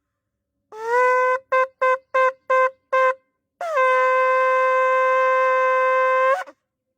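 Shofar (ram's horn) being blown: a short note that rises into pitch, five quick staccato blasts, then one long held blast that cuts off near the end.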